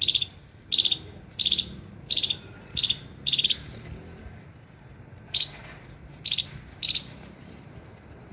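Short, sharp, high-pitched chirps, each a quick rattle, repeated about every two-thirds of a second, with a pause of nearly two seconds in the middle.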